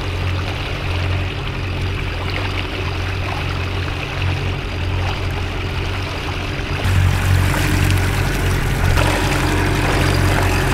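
Yamaha 50 outboard motor running steadily, with water rushing and splashing past the boat. The sound gets louder and brighter about two-thirds of the way through.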